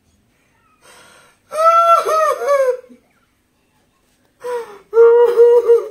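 A man's high-pitched falsetto wails in two stretches, the first about a second and a half in and the second near the end, the pitch wavering up and down.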